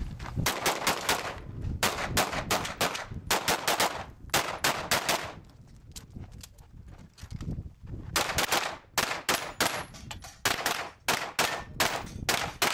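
Handgun fired rapidly during a practical shooting stage run: quick pairs and strings of sharp shots, with a lull of about two seconds in the middle before the firing picks up again.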